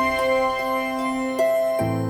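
Background music: soft sustained keyboard notes, with a new note about one and a half seconds in and a low bass note joining near the end.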